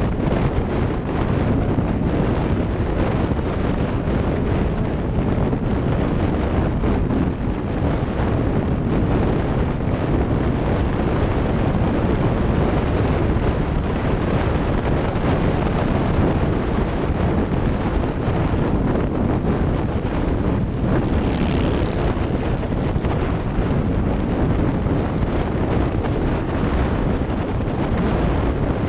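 Steady wind rush on the microphone and road noise of a motorcycle cruising at highway speed, with the bike's engine buried in the noise. There is a brief, sharper hiss about three-quarters of the way through.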